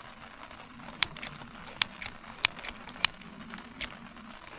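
Food grilling over a fire, with fat popping and spitting in sharp, irregular pops, about eight of them.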